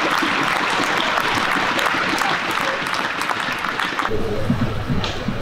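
Arena crowd applauding at the end of a rally, a dense patter of many hands clapping; it cuts off about four seconds in.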